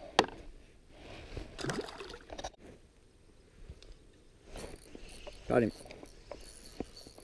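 A sharp knock just after the start. From about halfway, a Daiwa Certate spinning reel is worked with a fast, fine ticking as a redfin is hooked and takes line against a very loose drag.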